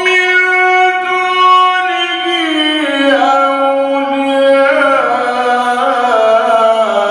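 A man's voice in melodic Quran recitation, drawing out a long ornamented phrase whose held notes step gradually lower in pitch.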